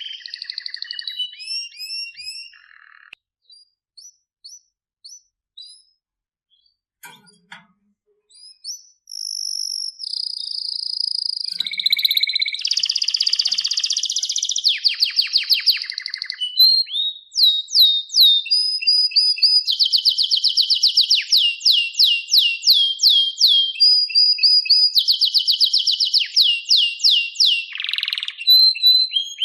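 Domestic canary singing: a few seconds of scattered short chirps and whistles, then full song from about ten seconds in, with long, fast rolling trills of rapidly repeated notes.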